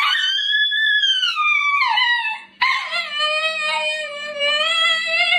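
A dog howling in two long drawn-out calls. The first rises and then slides down in pitch; after a short break about halfway, the second is held steady at a lower pitch.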